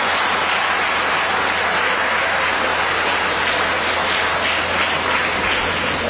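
Audience applauding steadily, with a steady low hum underneath.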